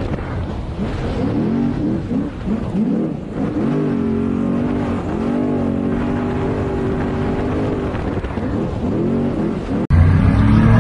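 Trophy truck engine heard from on board at race speed, its revs rising and falling again and again as the throttle works over rough desert track. About ten seconds in it cuts abruptly to a louder, steadier engine drone.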